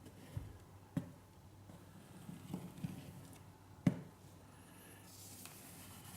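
A few scattered soft knocks and clicks, the loudest about four seconds in, with a faint hiss coming in near the end.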